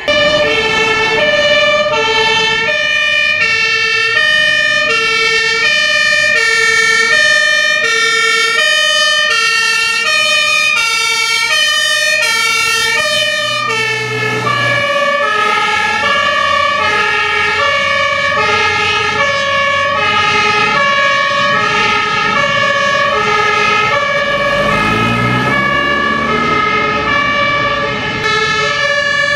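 Fire engine's German two-tone siren (Martinhorn) sounding continuously, alternating between a high and a low note about every 0.6 s. About two-thirds of the way through, the truck's engine is heard revving up as it pulls away.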